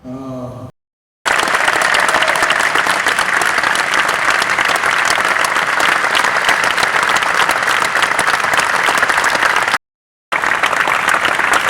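Large arena crowd applauding in dense, steady applause, cut off briefly twice.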